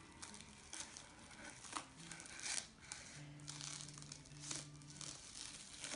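Clear plastic film wrapped around a paper roll crinkling and tearing as scissors cut through it: faint, irregular rustles and snips.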